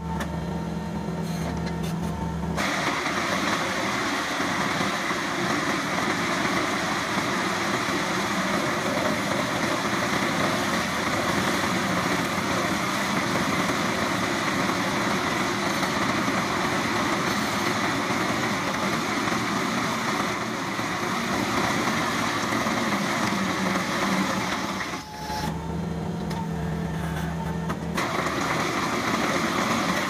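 Compact track loader engine running hard while its hydraulic Centerline HS-57 manhole cutter spins its drum into asphalt around a manhole: a steady, harsh machine din. Near the start and again a few seconds before the end, the harsh cutting noise eases for a couple of seconds, leaving a lower, steadier engine hum.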